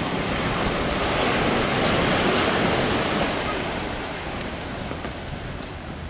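Surf breaking on the shore: a rush of wave noise that swells about two seconds in and then slowly fades.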